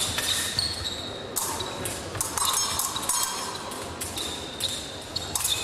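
Épée blades clashing and scraping in a fencing bout: a run of sharp metallic clinks with brief ringing, busiest around the middle, mixed with the thumps of fencers' feet on the piste.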